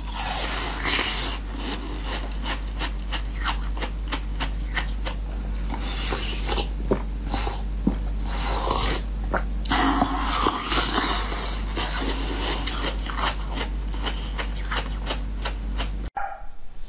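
Close-miked wet mouth sounds of a soft pink jelly being bitten, sucked and slurped: dense small clicks and squelches over a steady low hum. It all cuts off shortly before the end.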